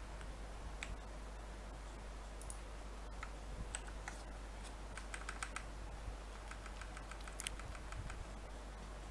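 Computer keyboard and mouse clicks: scattered single clicks, with two quick runs of key presses about five and seven seconds in, over a steady low hum.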